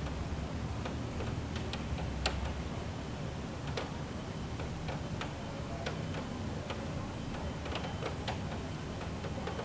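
Low, steady city-street rumble with scattered, irregular sharp ticks and clicks; the loudest tick comes about two seconds in.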